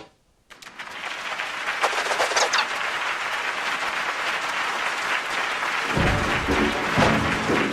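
Cartoon audience applauding, a steady clatter of clapping that starts about half a second in; music comes in underneath about six seconds in.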